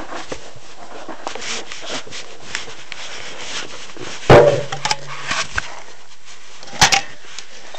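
Rubbing and handling noise on the phone's microphone, with a loud thump about four seconds in and a sharp double click near the end.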